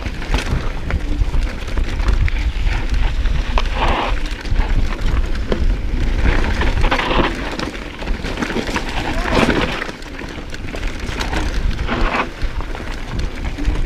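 Mountain bike riding down a rocky dirt trail: tyres crunching over gravel and stones and the bike rattling over bumps, with heavy wind rumble on the action-camera microphone.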